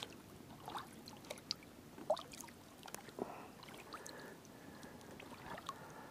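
Kayak paddle strokes in calm water: faint dips and swishes of the blade with water dripping off it, and scattered small clicks.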